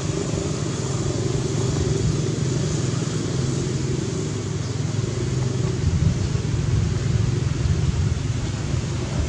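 Steady low outdoor rumble with a light hiss and no distinct events.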